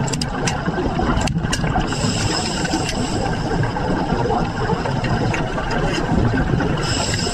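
Steady mechanical running noise with a rattle and a few sharp clicks, over a set of steady high whining tones.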